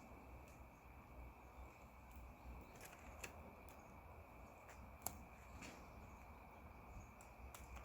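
Near silence: faint room tone with a steady high hum and a scattering of light clicks, the sharpest about five seconds in.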